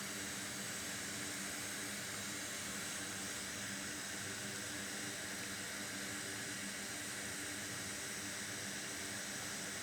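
Hot air rework station blowing with its nozzle removed, heating a logic board: a steady airy hiss with a faint hum under it.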